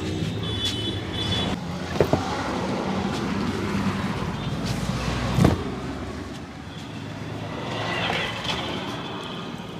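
Street traffic going by, with one vehicle passing loudest about five and a half seconds in, its pitch falling as it goes, and two sharp clicks about two seconds in.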